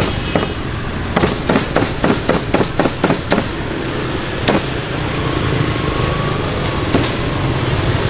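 Meat cleaver chopping through roast duck onto a thick wooden chopping block: a fast run of about a dozen chops, roughly five a second, from about a second in, then a few single chops. Steady street traffic noise underneath.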